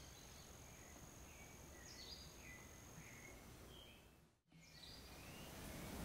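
Faint forest ambience of repeated short bird chirps over a steady high-pitched insect note, which stops about three seconds in. The sound cuts out briefly about four and a half seconds in, then the chirping returns.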